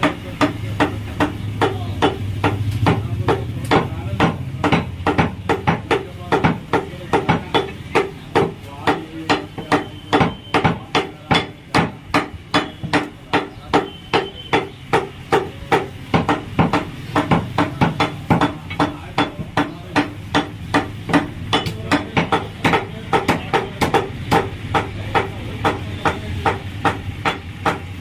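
Butcher's knife chopping goat meat and bone on a wooden chopping block: a steady run of sharp knocks, about two to three a second.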